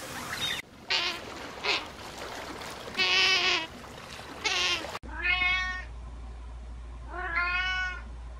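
A domestic cat meowing twice, two long drawn-out meows about two seconds apart in the second half. Before that, four short high-pitched animal calls, the longest about three seconds in and about as loud as the meows.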